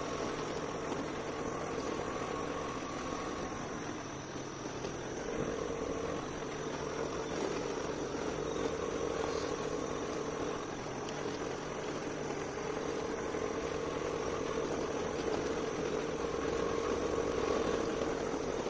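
A motor vehicle's engine running steadily while travelling along a rough dirt and gravel road.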